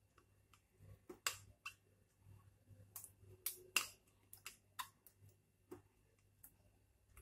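Faint, sharp clicks and taps, about a dozen at uneven intervals, as a glass bowl and a silicone spatula knock against a steel mixing bowl while mango pulp is scraped out into it.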